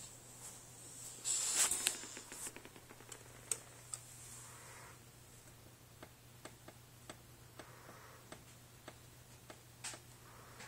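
Akita dog snoring softly, one slow breathy snore about every three seconds. A short burst of rustling and clatter about a second in is the loudest sound, and light clicks recur between the snores.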